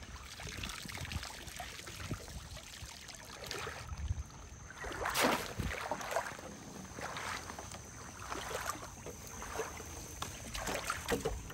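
Shallow water sloshing and splashing as a wader works a net, with water dripping from a net lifted over a floating plastic tub. There is a louder splash about five seconds in.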